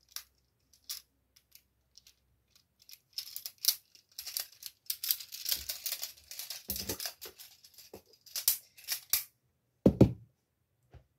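Plastic magnetic building tiles clicking and clattering as they are handled, snapped together and pulled apart: a few sparse clicks, then a busy stretch of rattling in the middle. Near the end comes a single dull thud.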